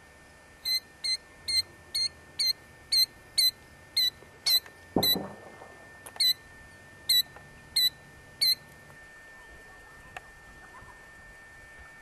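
Killdeer giving a series of sharp, high-pitched alarm calls, about two a second at first, then more spaced out, the bird's response to a threat near its nest. A thump with a low rumble comes about five seconds in.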